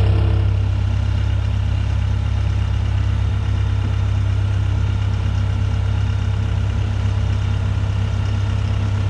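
Engine idling steadily with a constant low hum.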